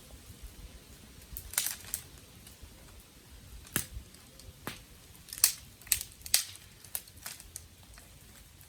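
Dry sticks cracking: about a dozen sharp, irregular snaps, the loudest a little past the middle.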